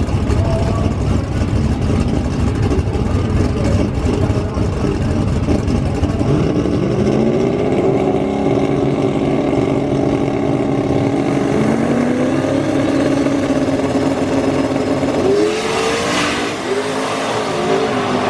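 Race car engine running loud, its pitch climbing about six and a half seconds in and then holding steady, with a brief burst of noise near the end.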